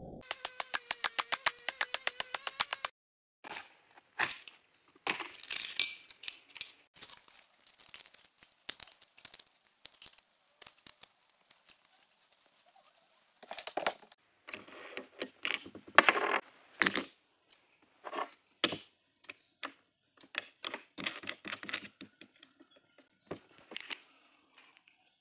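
Opens with about three seconds of rapid, evenly spaced knocks, a mallet driving a chisel into a log. Then scattered metallic clicks, clinks and short rattles as a chain-type wood carving disc is handled and fitted onto an angle grinder's spindle and flange.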